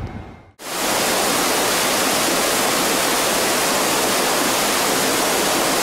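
A steady, even rushing hiss, starting abruptly about half a second in after the previous sound fades out.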